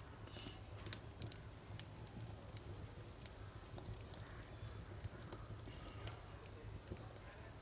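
Faint, scattered crackling of a hearth fire burning dry coconut-frond stalks and leaf pieces, over a low steady hum.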